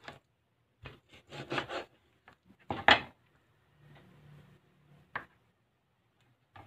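Meat cleaver chopping through a rack of lamb onto a cutting board: a few sharp knocks in the first two seconds and the loudest chop about three seconds in. Two more single knocks come later, near five seconds and at the very end.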